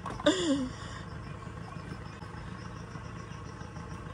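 Small boat engine idling with a steady low hum. A short vocal sound with a falling pitch comes near the start.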